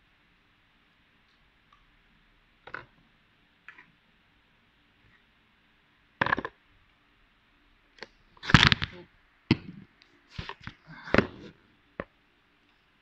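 Hands handling small objects on a desk: scattered clicks and knocks. There are a few faint ones in the first four seconds and a sharper click about six seconds in, then a quick cluster of clicks and knocks from about eight to twelve seconds in.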